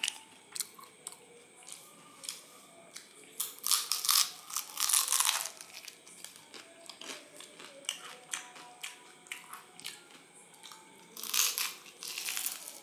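Crunching bites and chewing of crispy vegetable spring rolls. The loudest crunches come in two bouts, about four seconds in and again about eleven seconds in.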